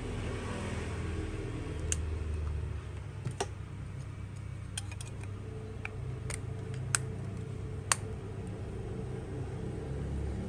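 About eight sharp, separate clicks at irregular intervals, over a steady low rumble.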